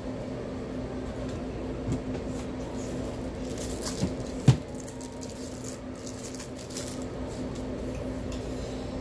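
A steady low hum with a few soft knocks on the counter as imitation crab sticks are set down and handled; the loudest knock comes about four and a half seconds in.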